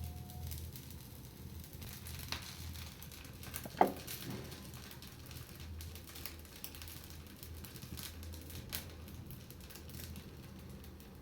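A small bird bathing in a water dish: scattered light splashes and rustles over a low steady hum, with one sharp sound about four seconds in that falls quickly in pitch.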